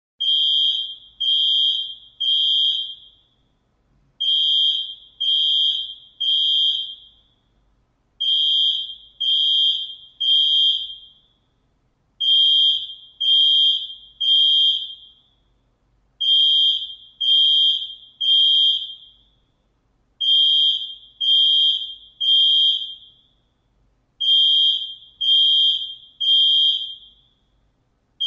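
Fire alarm sounding loud, high-pitched beeps in groups of three, about one beep a second, with a pause of about a second and a half between groups, repeating every four seconds. This three-beep pattern is the standard fire evacuation signal.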